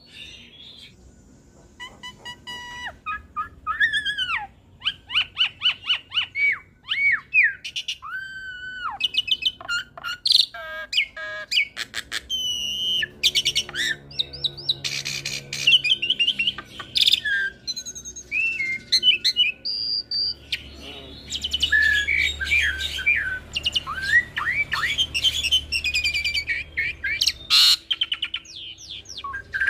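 Jalak suren × jalak nias hybrid starling singing a long, varied song: clear whistled notes that rise and fall, fast clicking runs and harsh rasping chatter.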